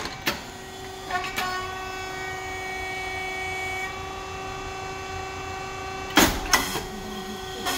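Puffed rice cake machine running: a steady whine from its motor and hydraulic pump, broken by sudden loud pops with a hiss as the heated moulds release, about a second in and again about six seconds in.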